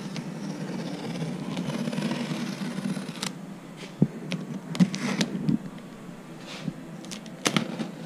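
Utility knife slitting packing tape and plastic stretch wrap on a cardboard box: a rustling, crinkling sound with a few sharp clicks in the second half.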